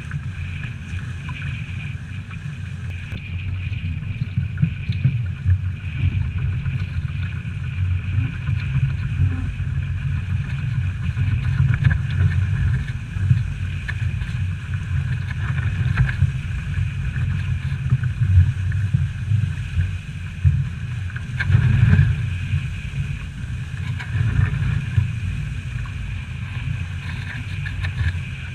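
Wind buffeting the microphone and water rushing past the hull of a small trimaran sailing fast, with gusty surges in loudness. A steady high whine sits over the rumble.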